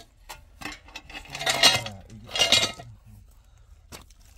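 Manual tile cutter working a large ceramic tile: two short scraping, clinking bursts of metal and ceramic, then a sharp click near the end.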